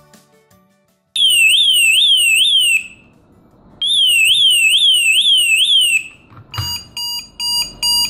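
A mortise lock's built-in siren sounding in two loud bursts of a fast warbling wail, about three sweeps a second, set off while the lock is locked and armed. Near the end come short, evenly spaced beeps, about three a second, as the key is turned in the cylinder.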